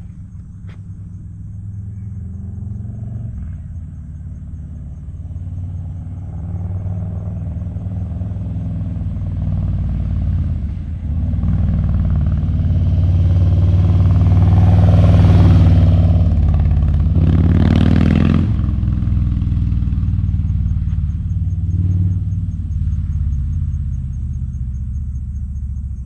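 Harley-Davidson Low Rider ST's Milwaukee-Eight 117 V-twin running through TAB Performance slip-on mufflers as the bike rides by. It grows louder as it approaches, passes close about two-thirds of the way through with a quick drop in pitch, then fades off down the road.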